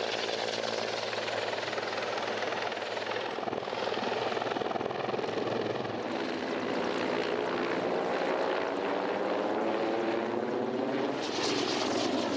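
Mi-24 attack helicopter flying close past in display manoeuvres: the turbines and main rotor are heard together as one dense, continuous sound. In the second half the tone sweeps as the helicopter turns and passes, and it grows a little louder.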